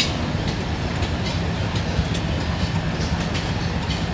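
Antique vertical stationary engine with a large flywheel running, a steady low mechanical chugging with faint clicks every second or so.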